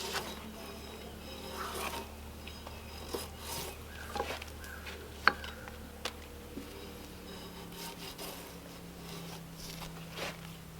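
Irregular scraping and rubbing strokes of a hand tool working wood, with one sharp knock about five seconds in.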